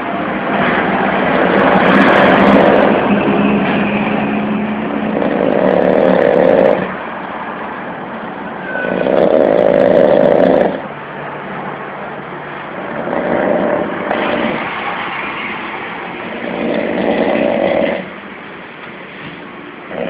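Loud, harsh snoring: five rasping snores, each lasting one to two seconds, coming about every four seconds, with quieter breathing between them.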